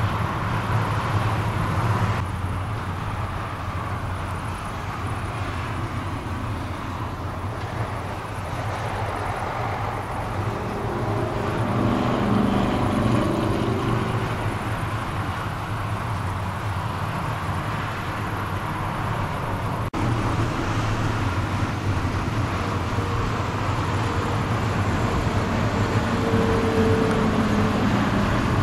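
Motorway traffic passing at speed: steady tyre and engine noise, with an engine note standing out as a car goes by about halfway through and again near the end.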